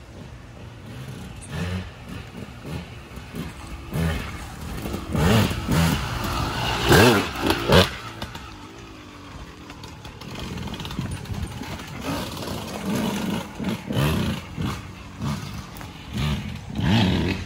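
Dirt bike engine on a trail ride, revving up and falling back repeatedly with the throttle, loudest about five to eight seconds in and again near the end, with some clattering knocks.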